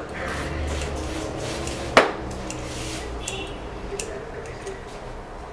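Barber's scissors snipping through a long beard: sharp metallic clicks, the loudest about two seconds in, with fainter snips after.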